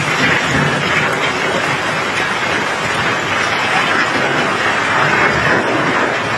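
Cobblestones clattering and rolling in a steady stream as they are unloaded down a stone heap, with rain falling.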